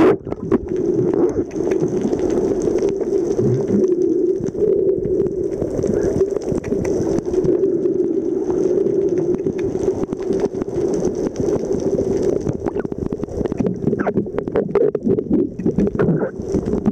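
Underwater sound picked up by a camera in the sea: a steady low drone with a fainter high hiss on and off, dotted with many small clicks and crackles.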